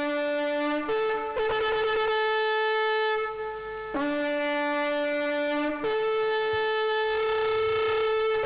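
Shofar blown in two long blasts, each a low held note that jumps up to a higher held note. The higher note wavers briefly in the first blast; the second blast starts about four seconds in.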